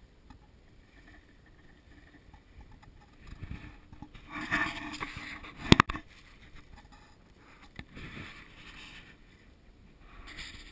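Footsteps and rustling on leaf litter and bark mulch, with camera handling noise, as a person walks into a garden enclosure carrying the camera. Two sharp clicks close together a little past the middle are the loudest sounds.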